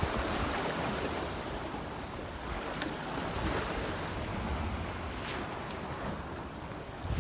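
Heavy surf surging and washing against a harbour breakwater, the noise swelling and easing, with wind buffeting the microphone.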